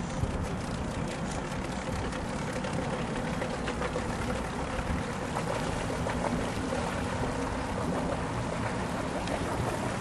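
1990 Bimini 29 sportfisherman's engines running slowly as the boat moves off the dock, a steady low rumble with a faint hum.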